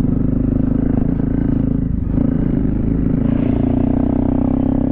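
250 cc single-cylinder dual-sport motorcycle engine running steadily while riding a trail, its pitch rising a little past the middle as the throttle opens.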